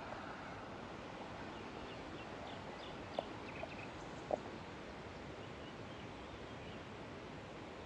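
Steady rush of flowing river water, with a few short bird chirps and calls about three to four and a half seconds in.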